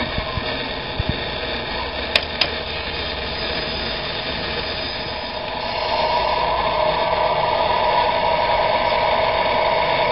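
Radio-controlled Scania model truck running with a steady mechanical whir, with two sharp clicks about two seconds in; the running sound gets louder from about six seconds in.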